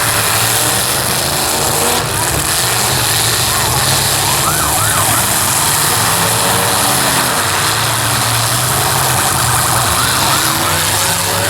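Demolition derby cars' engines running and revving together in the arena, with short rising-and-falling whines about four and a half seconds in and again near the end.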